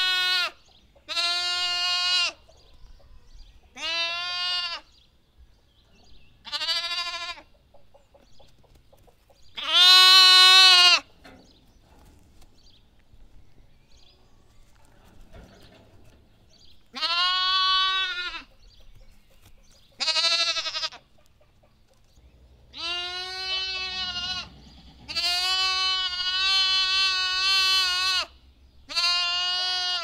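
A lamb bleating: a series of about nine separate baas with pauses between them. Most are around a second long, one runs about three seconds, and the loudest comes about ten seconds in.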